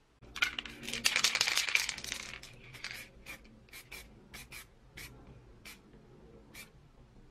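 Aerosol spray paint can spraying red paint: one long hiss of about two seconds, then a string of short, irregularly spaced puffs.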